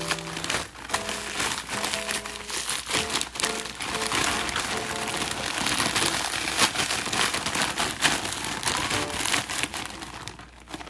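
Plastic packaging crinkling and rustling as it is handled, over background music whose notes drop out after the first few seconds.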